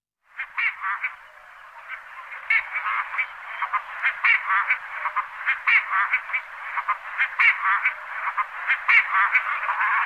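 A dense chorus of many animals calling at once: short calls repeated rapidly and overlapping without a break, thin and high-pitched with no low end.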